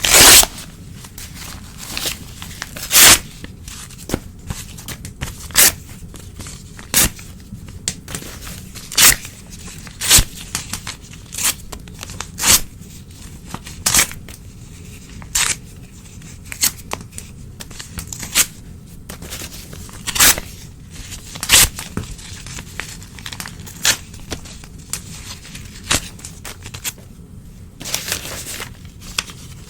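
Old newspaper being torn by hand: a series of short, sharp rips about every second, with paper rustling between them.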